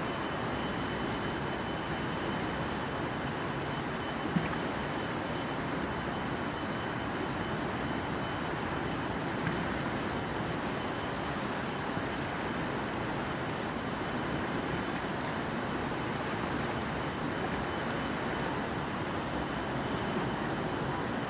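Steady rush of a fast river running over rapids and boulders, with one brief sharp click about four seconds in.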